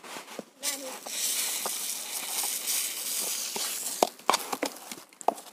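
Dry sand pouring from a plastic basin into an upright 3-inch plastic pipe, a steady hiss for about three seconds, as the pipe is packed with sand ahead of heating and bending it. A few sharp knocks follow near the end.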